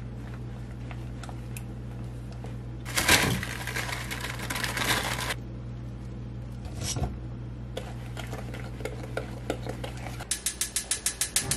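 A spoon stirring and scraping a thick cocoa and sugar mixture against a glass mixing bowl, with a long gritty scrape about three seconds in. Near the end come fast, even strokes as the batter is beaten quickly.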